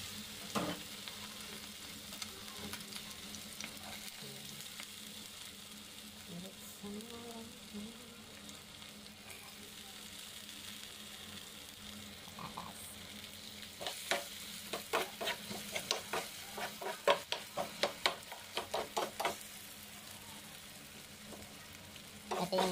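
Diced potatoes and garlic sizzling in hot oil in a frying pan. From about two-thirds of the way through, a metal spoon scrapes and knocks against the pan in quick stirring strokes, about four a second.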